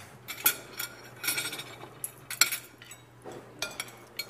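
Cutlery and ceramic dishes clinking in an irregular run of sharp strikes as food is served and eaten at a table, some strikes ringing briefly.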